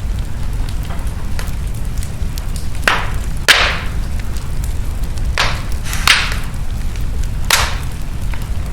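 Wood fire burning in a fireplace, with a steady low rumble of flames and sharp crackling pops from the burning logs: five strong pops, the loudest about three and a half seconds in, among smaller clicks.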